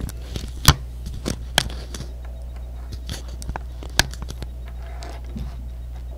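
Small plastic LEGO minifigure pieces being handled and pressed together close to the microphone: a scatter of sharp clicks and light scrapes, over a steady low hum.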